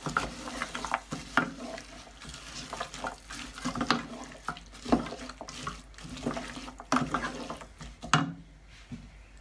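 Wooden spoon stirring chopped cauliflower leaves through a thick onion and spice paste in a stainless steel pot, with irregular scrapes and knocks against the pot's sides and bottom.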